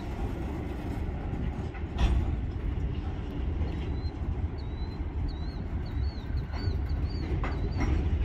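Open hopper cars rolling slowly over a road crossing during switching, a steady low rumble with a few sharp clunks from the wheels.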